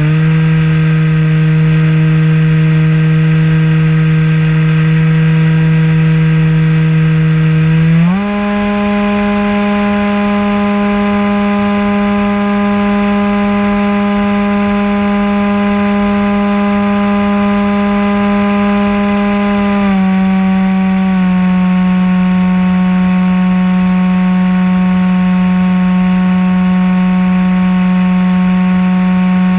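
Maxi-Swift RC flying wing's motor and propeller running, picked up by the onboard camera as a loud, steady, pitched hum. The pitch steps up about eight seconds in as the motor speeds up, then eases down slightly about twenty seconds in.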